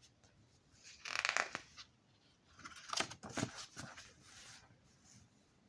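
Paper rustling as the glossy pages of a CD booklet are handled and turned, in two short bursts, the second longer.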